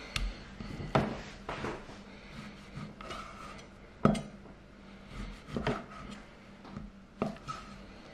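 Kitchen knife cutting raw meat on an end-grain wooden chopping board: a few sharp knocks of the blade and meat on the wood, the loudest about four seconds in, with some rubbing between them. A faint steady hum runs underneath.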